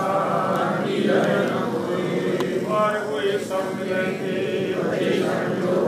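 A Sikh congregation chanting devotional verses together, many overlapping voices going on steadily without a pause.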